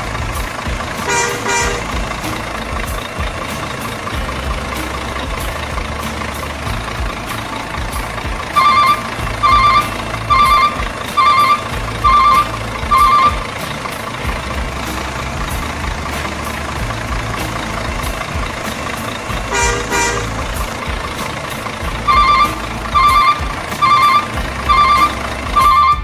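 RC truck sound module playing a simulated truck engine running, with an electronic reversing beeper sounding in two runs of about one beep a second. There are also two short tone blips, one about a second in and one near the twentieth second.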